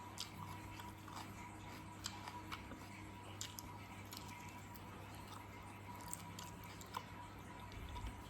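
A person chewing and biting into braised pork hock, with scattered wet, sticky mouth clicks, over a steady low hum.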